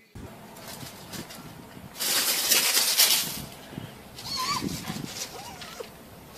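A loud rush of noise for about a second and a half, about two seconds in, then a few short, high, wavering animal calls near the end.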